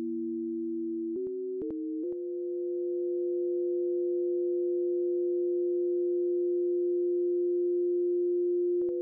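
Two pure sine tones from synthesizer oscillators in Native Instruments Reaktor 6, sounding together a few hundred hertz apart. They step up in pitch together three times in the first two seconds, with a faint click at each change, then hold steady.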